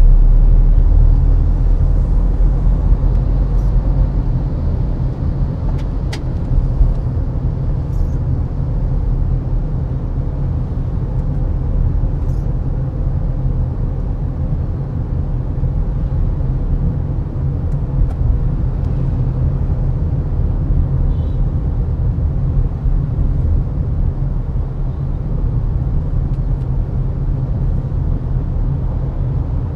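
A car on the move: a steady low rumble of engine and road noise, loudest at the very start, with a few faint short clicks over it.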